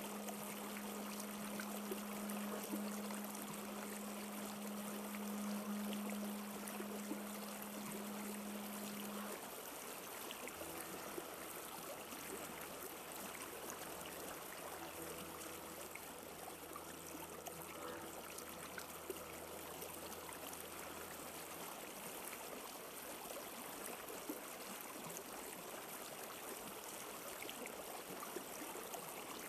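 Steady rush of running water, like a flowing stream. A low steady hum sounds under it for the first nine seconds or so. After a short break, a deeper layered drone holds for about eleven seconds, then stops.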